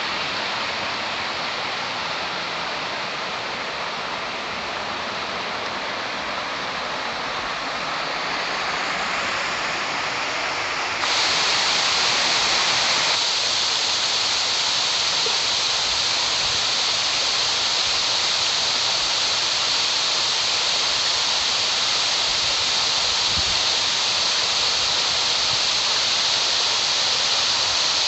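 Rushing water of a mountain stream cascading, a steady hiss that jumps suddenly louder and brighter about eleven seconds in.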